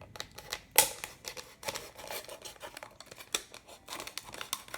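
A sharp blade cutting through a thin plastic juice bottle: irregular crackles and clicks of the plastic, with one sharper snap about a second in.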